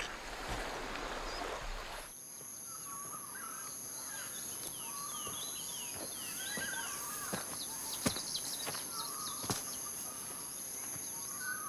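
Early-morning tropical outdoor ambience. For about two seconds there is a soft hiss of calm surf on the beach. After an abrupt change, a steady high insect drone runs on with many short bird chirps and a few light clicks.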